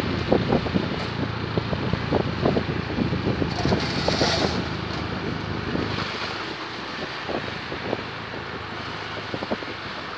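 Wind buffeting the microphone of a moving vehicle, with its running engine underneath. The gusting eases off after about six seconds.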